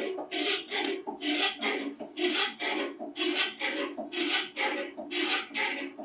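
JET hand pallet jack being pumped by its handle, a rasping, creaking stroke about once a second.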